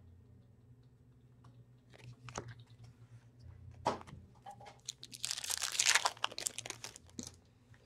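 Trading cards and their packaging being handled. Scattered light clicks are followed, about five seconds in, by roughly two seconds of dense crinkling rustle.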